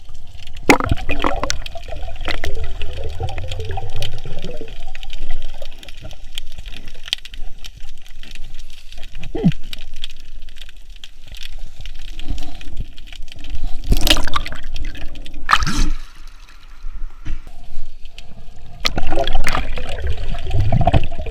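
Water sloshing and gurgling right at the microphone of a snorkeler's camera, with crackling bubbles and two louder splashes about two-thirds of the way through.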